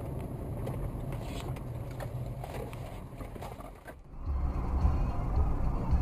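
Car dashcam audio from inside a moving car: steady engine and road rumble with faint rattles. About four seconds in it drops out briefly and gives way to a different, deeper and louder road rumble.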